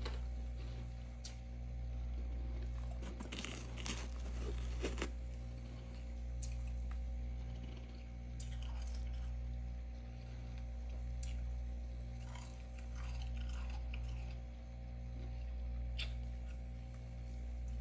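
Packed freezer frost crunching and crackling in irregular bursts, loudest in a cluster a few seconds in, over a steady low hum that swells and fades about every two seconds.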